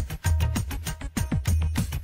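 Belly dance music playing, with a fast drum rhythm over deep bass beats about once a second.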